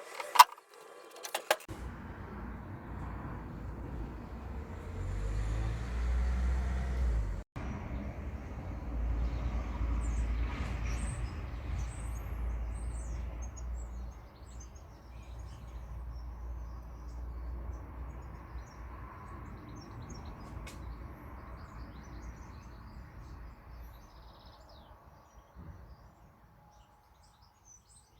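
A few sharp clicks, then a low rumble that swells and fades over several seconds, with faint bird chirps above it.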